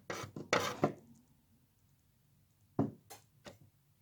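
Knocks and clatter of things being handled on a hard surface: a quick flurry of clicks and knocks in the first second, then three separate knocks near the end.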